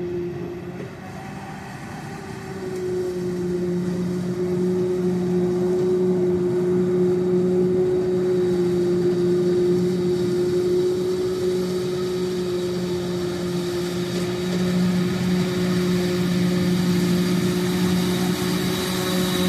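Heavy harvest machinery running steadily with a constant engine drone and whine, growing louder about two to three seconds in as it draws nearer or takes more load.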